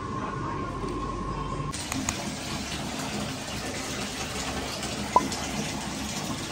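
Water running from a tap into a filling bathtub, a steady rushing that starts about two seconds in.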